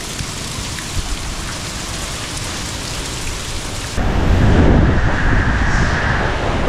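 Heavy hurricane rain hissing steadily. About four seconds in it cuts to a louder, deep rumble of the hurricane's eyewall winds pounding the building, heard from inside.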